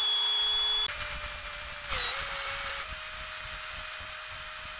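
Cordless drill spinning a ball hone inside the cylinder bore of a Predator 212cc Hemi engine block: a steady high motor whine with a hiss of abrasive scrubbing. The pitch steps up about a second in, sags briefly near two seconds as the hone loads, then rises again and holds.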